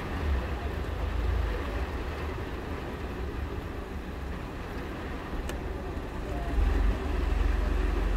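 Heavy rain falling steadily, with a deep low rumble underneath that swells near the end.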